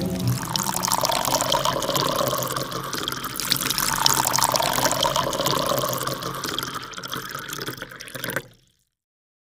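Splashing, rushing water sound effect of an animated logo intro, ending abruptly about eight and a half seconds in.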